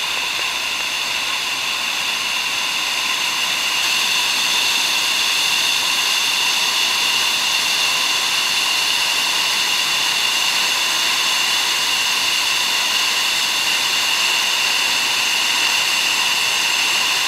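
Iguaçu Falls at the Devil's Throat heard up close: a loud, steady rush of falling water, with the thick spray and wind at the viewing walkway washing over the microphone.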